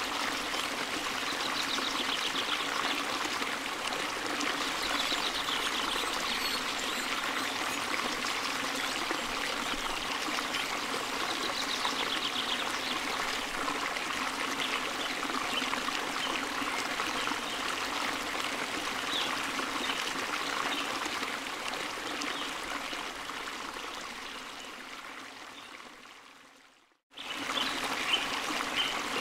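Steady running-water sound like a trickling stream. It fades out near the end, drops briefly to near silence and starts again a second later.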